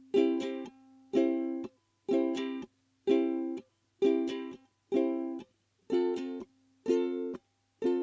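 Makala ukulele strummed on a C major chord in a reggae-style chop: short, damped strums, each a quick group of strokes cut off before the next, about one a second.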